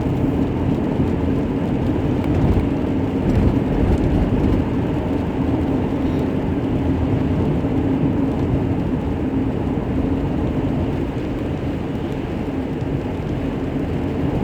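Steady engine and road noise heard from inside a moving car's cabin, a constant low drone that holds at an even level throughout.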